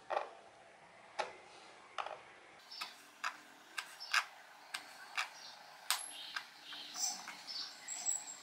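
A kitchen knife slicing kinnow orange peel into thin strips, the blade clicking against a plastic cutting board with each cut. The clicks come about once a second at first, then speed up to about two a second.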